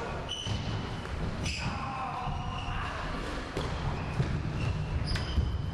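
A football being kicked and thudding off the walls and wooden floor of a squash court, a few sharp impacts spread through the moments, with short high squeaks from players' shoes on the floor.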